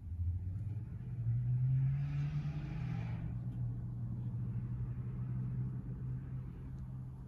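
Car engine running with a steady low hum that rises in pitch about a second in and holds. A brief hiss sounds a couple of seconds in.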